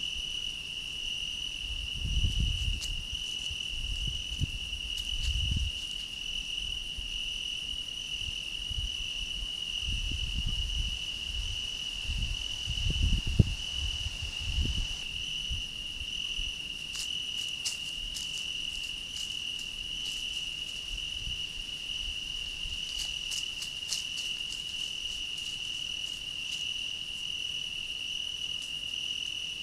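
Crickets chirring in one unbroken, steady high note. Low thumps and rumbles come through in the first half.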